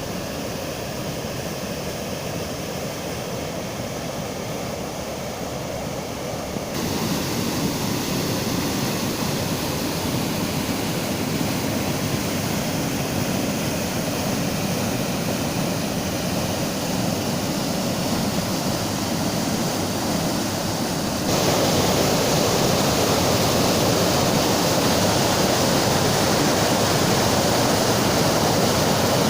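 Water rushing steadily over small river waterfalls, an even wash of noise with no pitch. It jumps abruptly louder twice, about a quarter of the way in and again about two-thirds of the way in.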